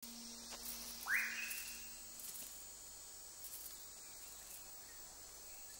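Tropical forest ambience: a steady chorus of insects, with one whistled call about a second in that sweeps up quickly and then holds a high note for about a second.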